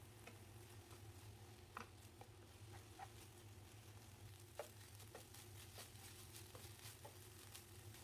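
Near silence: a low steady hum with scattered faint, irregular light clicks and taps.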